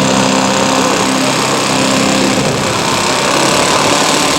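Small engine of a radio-controlled scale model airplane running steadily, its note shifting a little past halfway.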